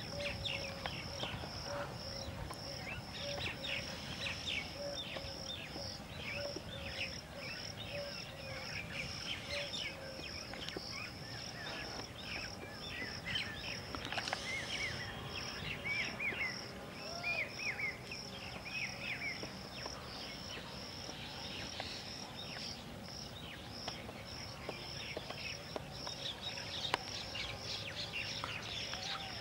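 Outdoor nature ambience: an insect chirps steadily in a high pulse, about two a second, while birds chirp and call around it.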